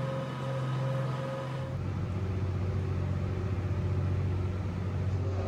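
Steady low mechanical hum from a stationary train's equipment. About two seconds in, its pitch drops and a higher tone in it stops.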